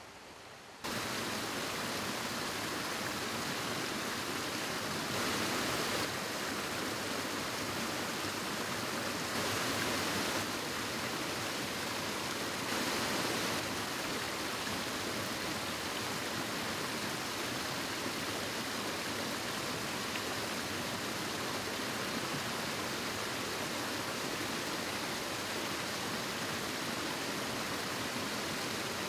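Steady rushing of running water, like a canyon stream or small waterfall, starting abruptly about a second in and holding even throughout with slight swells.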